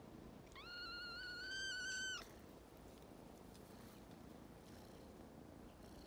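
A kitten's single drawn-out meow, about a second and a half long, rising at the start, then holding steady before it breaks off.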